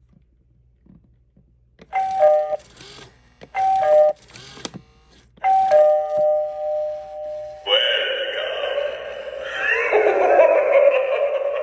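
Gemmy eyeball doorbell prop chiming a two-note ding-dong three times, each a higher tone dropping to a lower one, the third held longer. About eight seconds in, a louder continuous sound from the prop starts.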